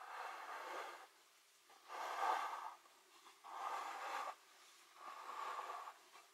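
A person breathing close to the microphone: four breaths of about a second each, evenly spaced.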